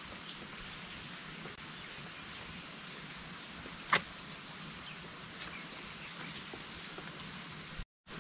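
Steady light rain falling, with scattered drops ticking and one sharp, loud drip about four seconds in. The sound cuts out briefly near the end.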